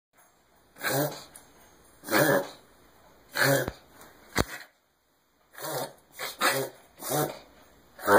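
Dog having a reverse-sneezing episode: repeated forceful, noisy inhalations through the nose, about one a second, with a short break about halfway through. Two sharp clicks fall near the middle.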